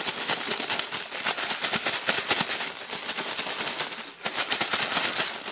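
Plastic Shake 'n Bake bag rustling and crinkling as it is shaken with pork chops and crumb coating inside, with a short pause about four seconds in.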